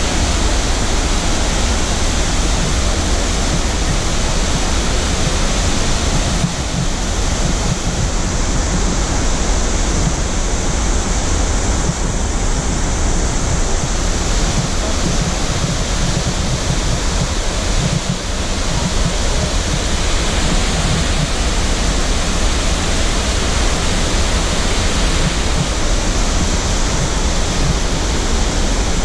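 Upper Mesa Falls, a 114-foot-high, 200-foot-wide waterfall on the Henrys Fork, pouring over the cliff: a loud, steady, unbroken rush of falling water, heavy in the low end.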